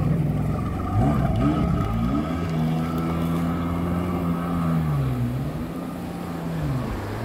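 Jet ski engine revving in a few quick bursts, then running at a steady pitch that dips and climbs back twice.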